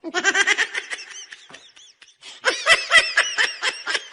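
A person laughing, high-pitched giggles in quick runs, in two bouts with a short pause between them.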